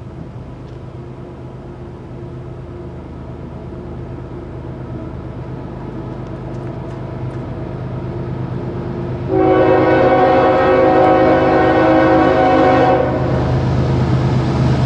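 Approaching train: a low diesel locomotive rumble grows steadily louder, then about nine seconds in its multi-note air horn starts, loud and steady for about four seconds, easing off briefly near the end.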